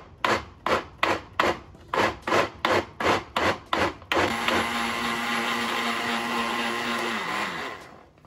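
Countertop blender chopping boiled carrot and beet chunks in their hot cooking water: about ten quick pulses, a little over two a second, then the motor held on steadily for a few seconds, winding down with a falling tone as it is switched off near the end.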